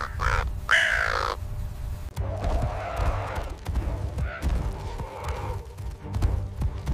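A large black corvid gives two harsh caws in the first second and a half. After that come a low rumbling with irregular heavy thuds and muffled squawking noises.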